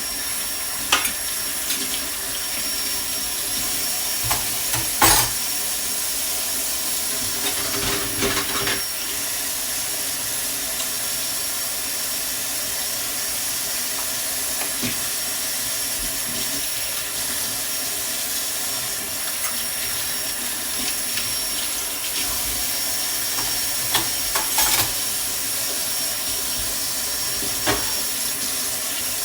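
Dishes being washed by hand at a kitchen sink: a steady hiss of running water, with dishes and utensils clinking and clattering a few times.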